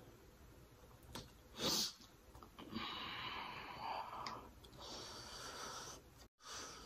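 Close-miked mouth sounds of a person eating shrimp: chewing and heavy breathing through the nose, with a few sharp clicks and a short, louder noisy burst just before two seconds in.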